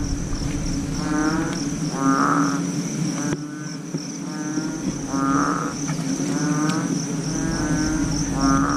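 Frogs calling at night: repeated short pulsing croaks, roughly one every second or so, over a steady high insect trill.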